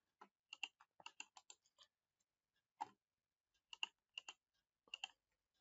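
Faint, scattered clicks from a computer keyboard and mouse. A quick run of about a dozen clicks comes in the first two seconds, then a single click and three close pairs of clicks.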